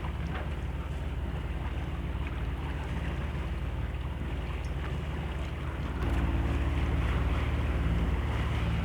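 A sailing yacht's engine running steadily under motor, a low hum, with water rushing along the hull and wind on the microphone. About six seconds in, the engine hum grows louder.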